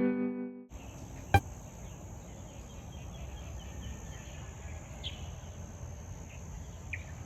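Steady high-pitched drone of insects such as crickets, with a few faint chirps. A single sharp knock sounds about a second and a half in, and a music track dies away just before the drone takes over.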